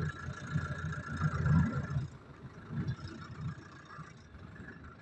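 Safari vehicle engine idling: a low, uneven rumble, louder for the first two seconds and quieter after, with a faint steady high tone that fades out about two seconds in.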